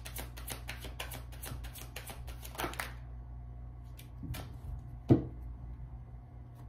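Tarot deck shuffled by hand, cards slapping together in quick repeated clicks, about five or six a second, for roughly three seconds. Then a few separate taps as cards are drawn and set down on the table, the sharpest about five seconds in, over a steady low hum.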